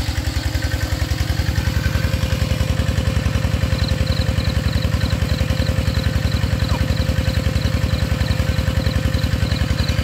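Engine of a water pump draining a pond, running steadily with a fast, even pulsing beat.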